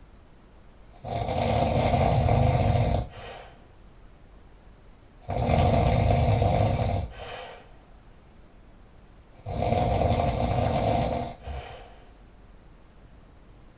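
Very loud snoring: three long snores, each about two seconds long and about four seconds apart, each ending in a brief softer catch.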